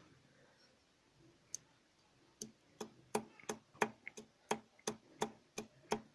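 Connecting rod of a stripped Piaggio Leader 210 cc scooter engine being rocked back and forth by hand, clacking metal on metal in a steady rhythm of about three clicks a second from a little before halfway in. The rod slops about 5 mm to each side, the sign of a broken-up cage in the crankshaft's lower (big-end) bearing.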